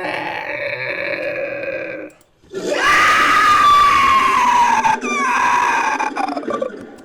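Made-up creature calls for a fictional humanoid hawk, mixed from a human voice and animal calls: a shorter call, then after a short pause a long, loud call that slowly falls in pitch, with a brief break partway through.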